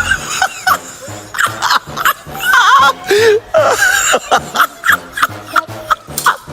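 Background music with a steady beat, and a wavering, voice-like sound over it.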